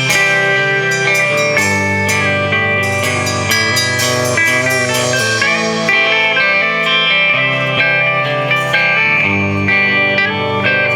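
Live band playing an instrumental passage led by guitar, with cymbal hits in the first few seconds.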